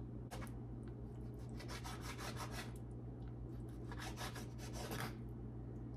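Kitchen knife sawing back and forth through a partly frozen raw chicken breast, the blade rasping against a hard cutting board. It comes in three bouts of quick strokes, the longest near the middle and the end, over a steady low hum.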